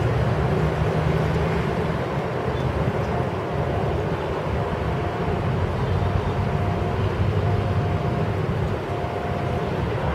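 Distant ATR 72 turboprop airliner's engines and propellers droning steadily as it rolls out on the runway after landing: a low hum under a steady rush of noise.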